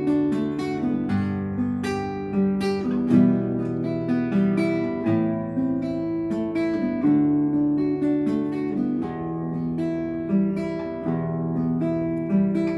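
Acoustic guitar being played: chords strummed and notes plucked in a continuous tune.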